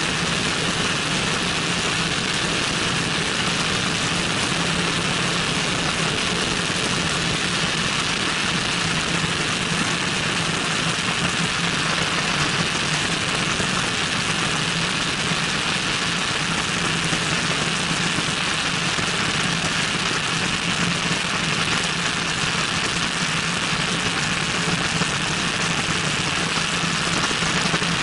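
Cessna 172N's four-cylinder Lycoming O-320 engine and propeller droning steadily in flight, under a heavy, even rush of airflow over an outside-mounted microphone.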